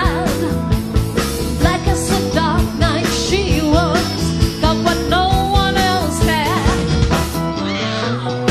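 A woman singing lead with a wavering vibrato over a live rock band, with drums keeping a steady beat.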